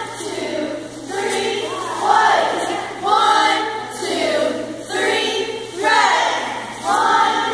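A group of cheerleaders chanting a cheer in unison, loud shouted calls coming about once a second, echoing in a gymnasium.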